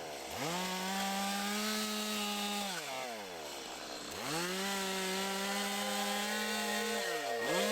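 Stihl two-stroke chainsaw revved up to full throttle and held for about two and a half seconds, dropping back to idle, then revved and held again for about three seconds before falling off, with a short blip of throttle near the end.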